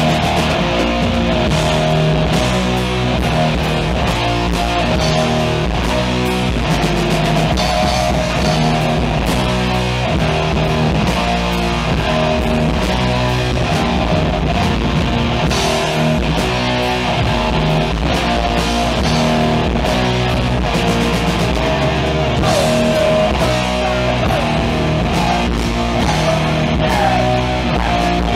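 Heavy metal band playing live: electric guitars and bass playing a riff over drums.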